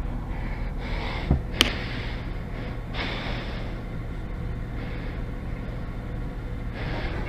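Low steady hum under a muffled background, with two light knocks about a second and a half in.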